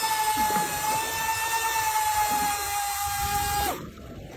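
Electric deep-drop fishing reel winding in line with a fish on, a steady high-pitched motor whine that stops suddenly near the end.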